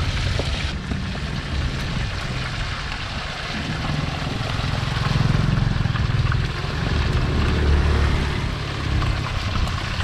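Food deep-frying in a wide pan of hot oil, a continuous sizzling hiss, over a steady low rumble of motorbike street traffic.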